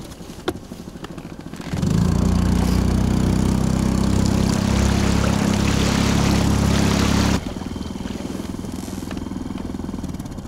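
A small boat motor running steadily under way, with a rush of wind and water. It starts abruptly about two seconds in and drops just as abruptly about seven seconds in to a quieter, pulsing run.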